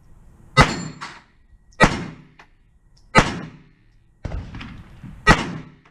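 Four gunshots fired at a steady pace, roughly one every second and a half, each a sharp crack with a short tail. A quieter shot comes between the last two.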